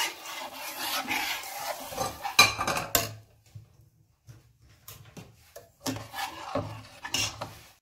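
Metal ladle stirring thick lentil soup in a stainless steel pot, scraping and clinking against the pot's sides and bottom. The sound breaks off for a second or two midway, then the stirring and clinks resume.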